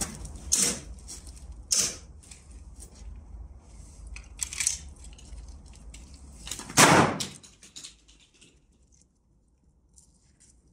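A few irregularly spaced sharp pops from an airsoft replica being fired, with a louder, longer knock about seven seconds in.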